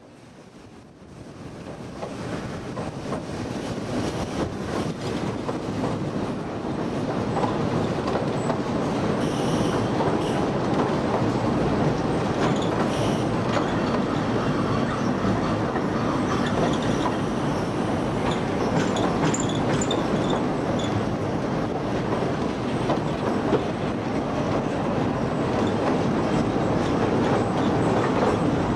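A train running on the rails. The sound fades in over the first few seconds, and high squeals from the wheels come and go through the middle.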